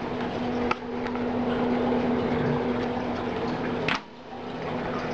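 Fans of an Apevia Jupiter computer case running: a steady airy whoosh with a low hum. A sharp click comes under a second in and another about four seconds in, after which the sound briefly drops.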